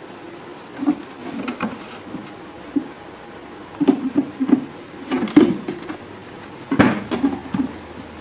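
Irregular knocks and clatters of parts and tools being handled during electronics repair work, in small clusters with short pauses between.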